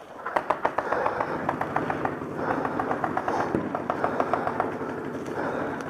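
Paintball markers firing in rapid bursts of sharp pops, several shots a second, over outdoor background noise.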